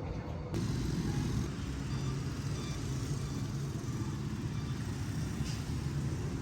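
Road traffic: a steady, low engine rumble of vehicles going by, starting abruptly about half a second in.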